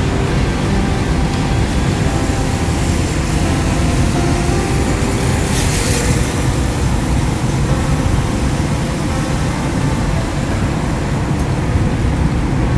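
Car driving through city traffic: steady engine and road noise, with a brief hiss about halfway through.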